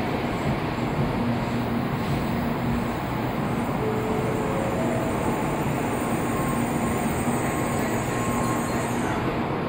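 N700-series Shinkansen train rolling slowly alongside the platform, a steady rumble of wheels and running gear with faint humming tones.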